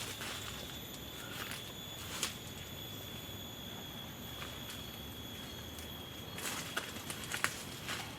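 Scattered crackles and rustles on dry forest litter in the first two seconds and again near the end, over a steady high-pitched insect drone.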